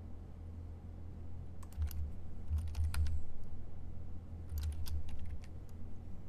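Typing on a computer keyboard in two short runs of clicks, about two seconds in and again around five seconds, over a low steady hum.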